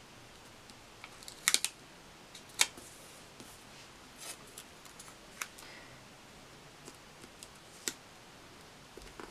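Paper and sticker handling on a spiral-bound planner page: a few sharp, scattered clicks and soft paper rustles as stickers are peeled and pressed down by hand.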